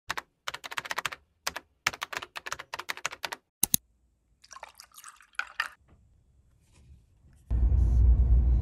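Rapid clicking of typing on a keyboard, then a drink poured into a glass of ice cubes with some splashing and clinking. About seven and a half seconds in, a loud steady low rumble of road noise inside a moving car takes over.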